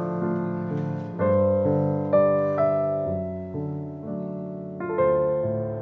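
Soft piano background music: sustained chords struck one after another, each fading before the next.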